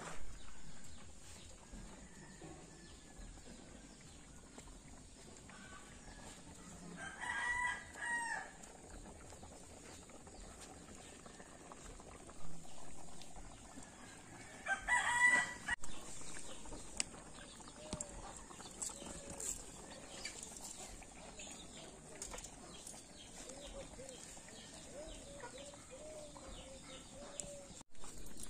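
A rooster crowing twice, about a quarter of the way in and again about halfway, with hens clucking softly in short, repeated calls later on.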